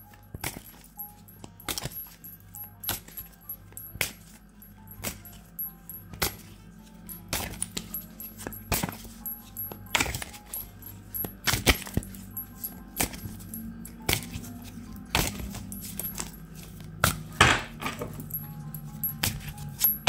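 A deck of tarot cards being shuffled by hand, overhand, giving irregular sharp taps and slaps of card on card, over soft background music.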